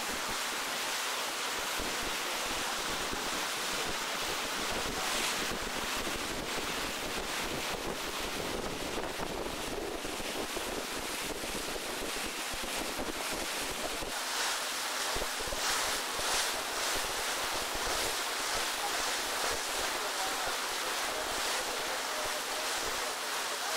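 Wind on the camcorder microphone over the steady rush of water from a moving boat, with a few louder gusts in the second half.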